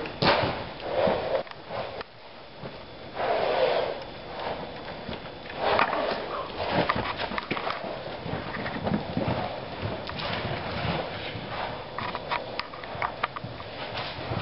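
Loose horses galloping and bucking on soft arena footing: dull hoofbeats, with a few loud snorts, the biggest about three seconds in.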